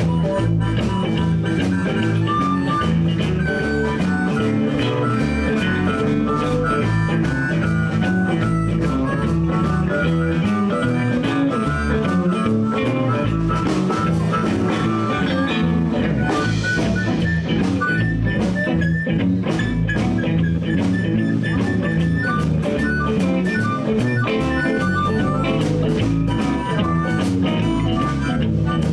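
Live blues band playing an instrumental break: a blues harmonica solo over electric guitar, bass and drums, with a cymbal crash about halfway through.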